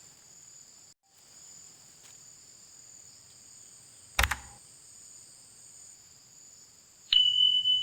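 Steady shrill chorus of insects, crickets by their sound, from the creekside vegetation. A single sharp knock comes about four seconds in. Near the end a loud, steady high-pitched tone with a low hum under it starts abruptly.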